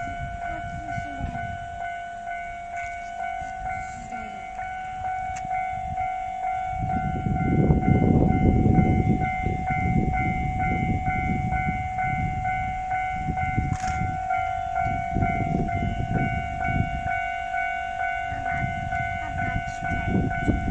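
Japanese level-crossing warning bell ringing steadily while a JR West Sanyo Line electric train rumbles over the crossing, the train loudest from about a third of the way in.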